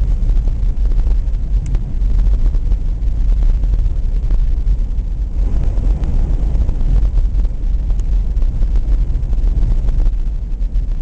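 A vehicle driving on a snow-covered highway, heard from inside the cabin: a steady low rumble of road and engine noise.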